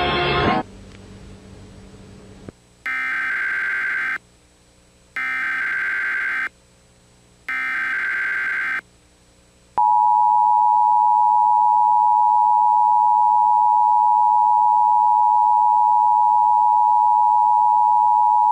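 Emergency Alert System broadcast tones: three short bursts of SAME digital header data, about a second apart, then the steady two-tone EAS attention signal, a loud continuous beep that starts about ten seconds in.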